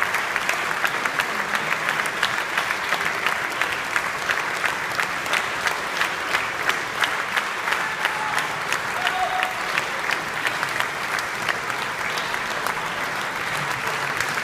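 Audience applauding, a dense steady clapping with individual sharp claps close by standing out.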